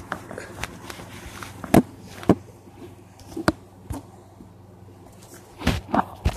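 Handling noise on a hand-held camera: a handful of scattered knocks and rubs, over a low steady hum.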